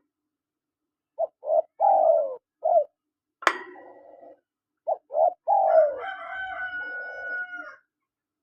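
Spotted dove (tekukur) cooing: two phrases, each of a few short coos followed by a longer falling coo. A sharp click comes between them, and a higher steady-pitched sound overlaps the end of the second phrase.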